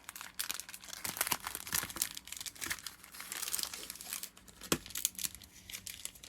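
Foil-wrapped football card packs and the cardboard blaster box crinkling and rustling in the hands as the packs are pulled out of the box, in an irregular run of crackles, with one louder tap about three quarters of the way through.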